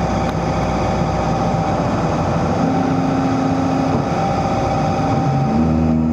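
Excavator's diesel engine running steadily. A lower steady tone joins it for about a second and a half near the middle and again near the end.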